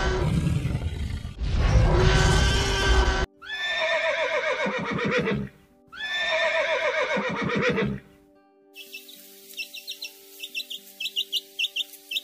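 A loud roar-like creature sound effect, cutting off about three seconds in, followed by two long horse whinnies that fall in pitch, then a run of short, rapid high peeps from a chick over faint steady background tones.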